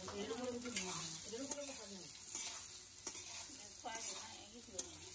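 Metal spatula stirring fried soya chunks in a metal wok, with a quiet sizzle of frying as the ginger, coriander and cumin pastes are sautéed. Several light knocks and scrapes of the spatula against the pan.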